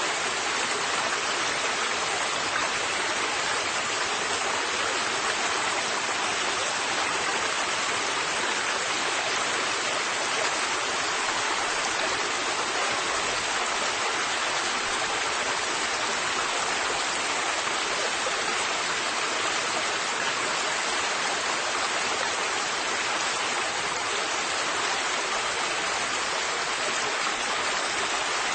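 River water flowing steadily over rocks, an even rushing with no distinct splashes.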